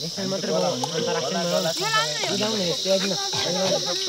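A steady, high-pitched insect chorus, crickets or similar, drones throughout, with several people chatting over it.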